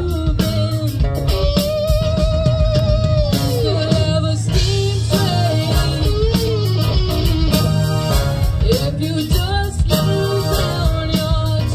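Live rock band playing: a woman sings, holding some notes with vibrato, over electric guitar, bass guitar and drums.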